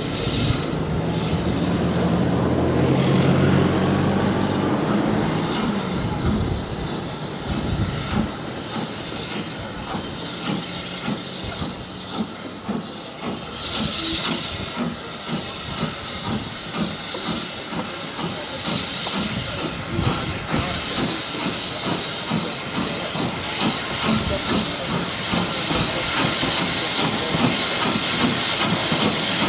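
M7 0-4-4 tank steam locomotive 30053 working a train away from the station, its exhaust chuffing in regular beats with steam hissing, getting louder as it comes closer. A low engine drone fades out about five seconds in.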